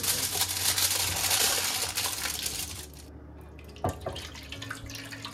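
Aluminium foil crinkling as it is pressed and folded by hand, for about three seconds. Then comes a single knock, and thick milk mixture pours from a pan into a metal loaf tin.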